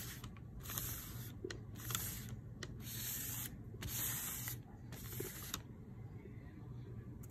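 A flat scraper dragged through wet acrylic paint across a sheet of paper, making a rasping swish with each stroke. There are about five strokes, each under a second long with short pauses between them, and they stop about two-thirds of the way through.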